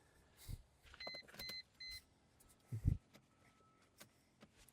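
Three short electronic beeps, evenly spaced about a second in, among light clicks and a couple of soft thumps of handling in a car cabin.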